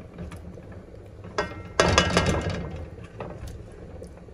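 A plastic slotted spoon stirs gandules in sauce in a metal pot, with a brief loud clatter of the spoon knocking against the pot about two seconds in.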